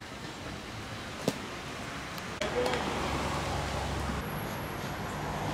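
Outdoor ballfield ambience with faint distant voices and a single sharp crack about a second in.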